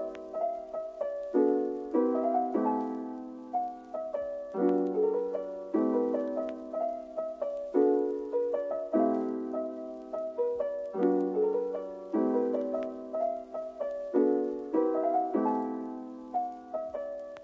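Background piano music: a gentle melody over repeating chords, each note struck and fading away.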